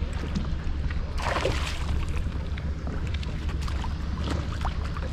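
Wind rumbling on the microphone over water lapping against a kayak hull, with a splash of water about a second in and a few small knocks and ticks.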